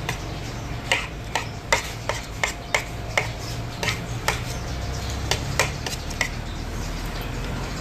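Cutlery clinking against a plate or bowl in about fifteen irregular, sharp taps, over a steady low rumble.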